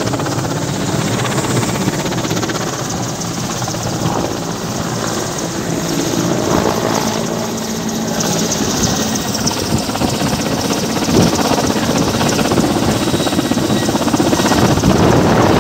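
Helicopter running close by: a loud, steady din of its rotor and turbine engines, growing a little louder near the end, with the rotor wash blowing up snow.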